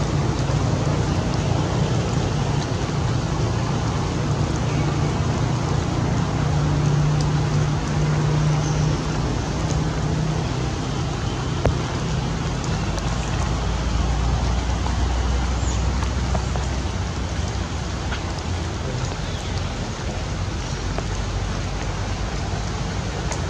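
Steady rain, a continuous hiss with a low rumble underneath.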